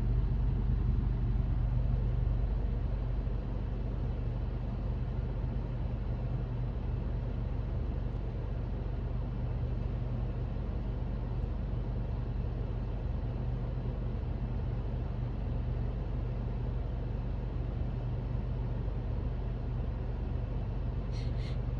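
A steady low rumble, even in level, with no sudden sounds.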